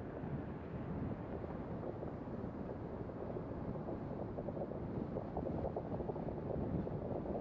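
Steady road noise of a car driving: an even low hiss of tyres and engine with some wind, with no distinct events.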